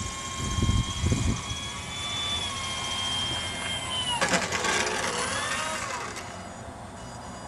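Electric motor and propeller of a radio-controlled gyrocopter whining steadily. About four seconds in there is a sharp clatter, and then the whine dips and rises in pitch as the throttle changes, fading away by about six seconds.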